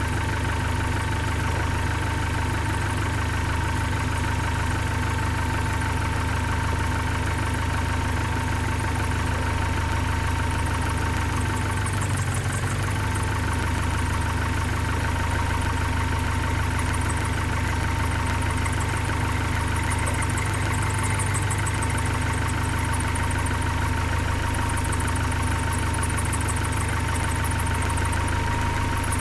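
1972 Datsun 510's L20B four-cylinder engine idling steadily at about 750 rpm while its carburetor's fuel mixture is being set, with a brief change in its note about twelve seconds in.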